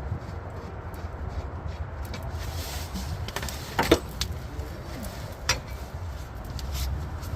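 A few sharp metallic clinks of hand tools or loose metal parts, the loudest about four seconds in with a short ring and another about a second and a half later, over a steady low rumble.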